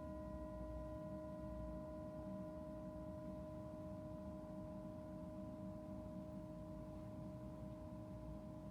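Tibetan singing bowl ringing on, a steady blend of several pure tones, the lowest strongest, fading only slowly.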